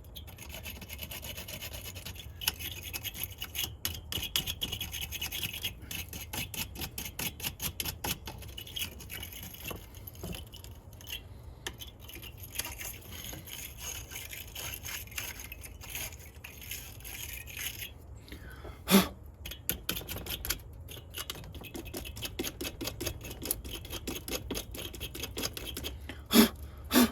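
Wire-bristle battery clamp cleaner scrubbing acid corrosion off battery cable clamps in quick back-and-forth strokes. A few sharper knocks come about two-thirds of the way through and near the end.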